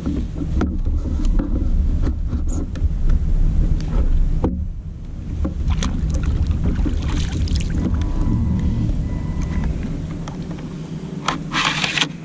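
Water slapping against a plastic kayak hull under a steady low rumble of wind on the microphone, with scattered knocks of gear being handled on the deck. A short hissing burst comes near the end.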